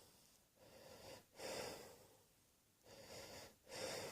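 A person breathing audibly and slowly: two breaths, each a softer draw followed by a louder, breathy exhale.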